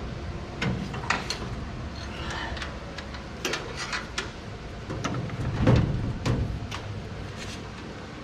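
Scattered metal clicks and knocks as a spreader's mounting pins are worked into place, with one heavier knock about six seconds in.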